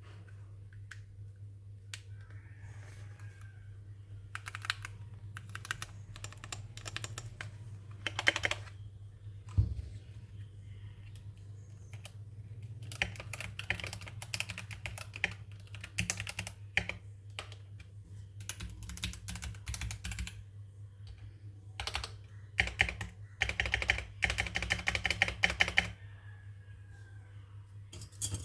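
Keychron K8 Pro mechanical keyboard with Gateron Brown tactile switches being typed on. A few scattered single key clicks come first, then fast runs of keystrokes in the second half. A steady low hum sits underneath.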